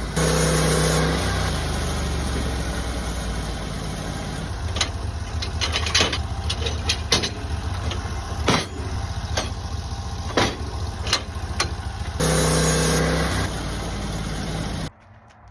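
Sawmill's engine running, revved up briefly at the start and again near the end, with a scatter of sharp knocks and clicks in between, then shut off about half a second before the end.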